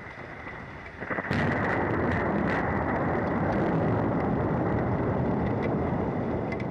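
Thunder from a nearby lightning strike: a sudden crack about a second in, then a loud, steady rumble for about five seconds, heard through a fixed outdoor camera's microphone.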